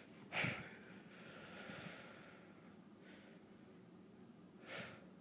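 A man breathing close to the microphone: a short, sharp breath about half a second in, a softer, longer breath in the middle, and another short breath near the end.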